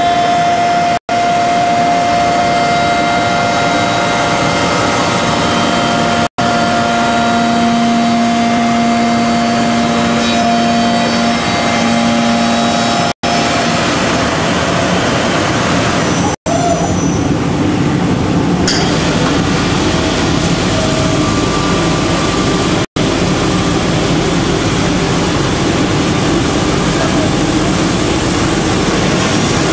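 Intorex multi-purpose CNC wood lathe working a chair-leg blank, its cutting and sanding units running with steady machine noise and a steady whine through the first half. The sound cuts out for a split second several times.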